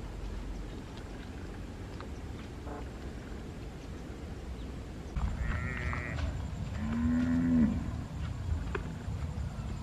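A cow mooing once, a long low call about seven seconds in, preceded by a shorter high-pitched animal call, over a steady outdoor background hum.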